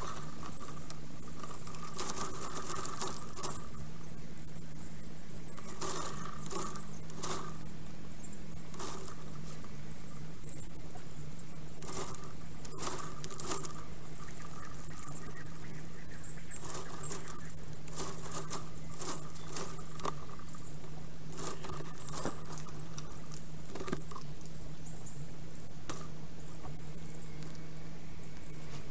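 Sped-up time-lapse audio from a black stork nest camera. A dense, high, squeaky chatter of forest birdsong runs throughout, over a steady low hum. Frequent short clicks and crackles of sticks in the nest come as the black stork lands and moves about on it.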